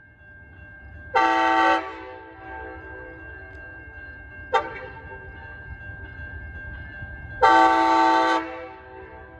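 Amtrak Wolverine locomotive horn sounding two chords about six seconds apart, the first under a second long, the second about a second long, with a brief sharp blip between them. A low train rumble and a steady high tone continue underneath.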